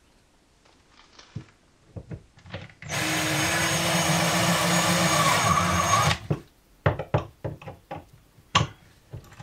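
Handheld power drill running steadily for about three seconds, starting about three seconds in, driving a screw to fix a bracket. A series of short clicks and knocks follows.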